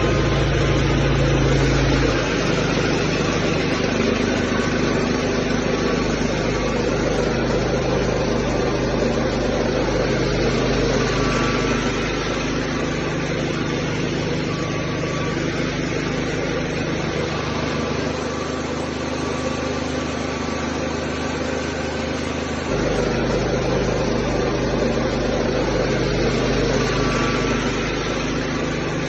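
Machinery running steadily, a dense mechanical hum and rattle. Its low hum shifts abruptly a few times, dropping slightly in level about twelve seconds in and rising again near twenty-three seconds.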